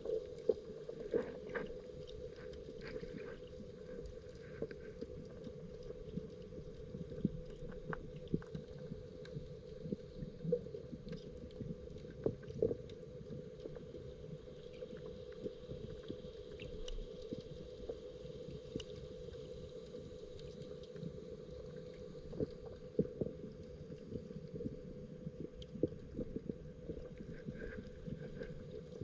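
Muffled underwater sound heard through a camera's waterproof case: a steady low hum with scattered clicks and knocks.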